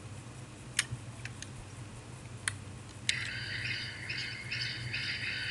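Two soft mouse clicks, then about three seconds in an AI-generated sound effect of eerie night-time bird calls starts playing: a dense, high chirring that swells and dips.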